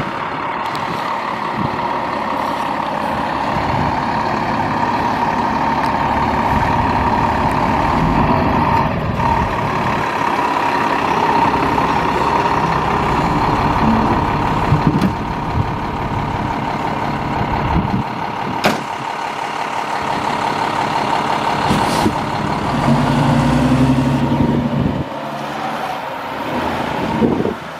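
Seagrave fire engine's diesel engine running, with a steady whine over it, then pulling away. There are a few sharp knocks in the second half and a louder engine note near the end.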